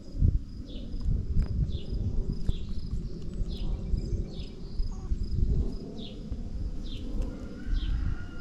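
Insects chirping in a regular series of short falling chirps, a little under one a second, over a heavy low rumble. A faint drawn-out tone comes in near the end.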